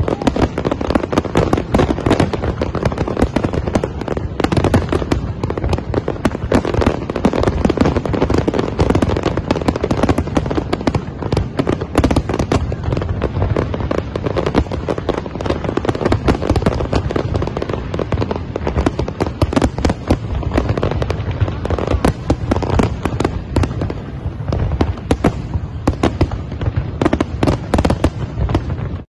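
Large aerial fireworks display: a dense, unbroken barrage of shells bursting and crackling.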